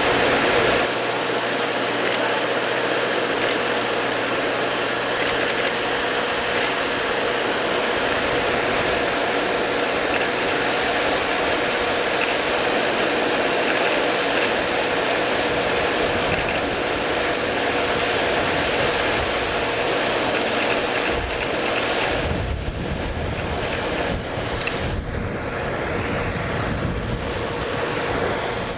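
Steady road traffic noise with vehicle engines running; the low rumble of passing vehicles grows stronger about three quarters of the way through.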